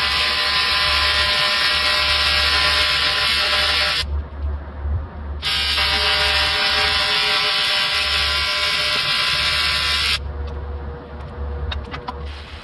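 AC TIG welding arc on aluminum, a steady buzz, from an ARCCAPTAIN TIG 200P. It cuts off about 4 s in, strikes again a second and a half later and stops about 10 s in, followed by a few light clicks.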